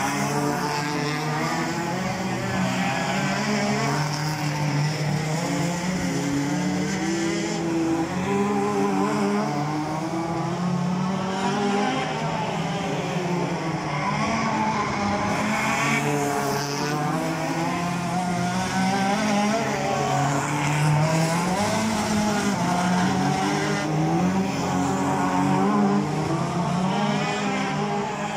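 A field of National Hot Rod race cars lapping the oval, several engines revving at once, their pitches overlapping and rising and falling as the cars go round, with no let-up.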